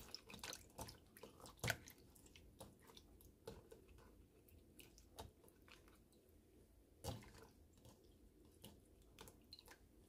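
Faint, irregular clicks and taps of vegetable preparation on a kitchen counter, with two sharper knocks, one about a second and a half in and one about seven seconds in.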